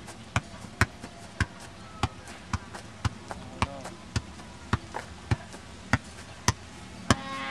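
A ball being struck or bounced over and over in an even rhythm, about two sharp impacts a second, with faint voices in the background.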